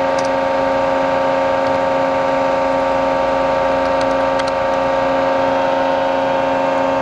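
Cincinnati hydraulic CNC press brake running with a steady, multi-tone machine whine while its CNC back gauge is moved along the Z axis.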